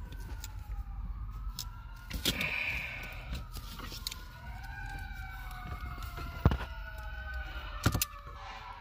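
Faint siren wailing, its overlapping tones slowly rising and falling. A few sharp clicks from hands and tools working the wiring, the loudest about six and a half and eight seconds in.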